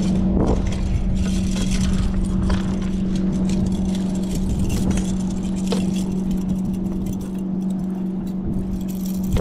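Metal chain fish stringer clinking and rattling in the hands as a catfish is clipped onto it, with scattered short clicks, over a steady low hum and rumbling wind-and-water noise.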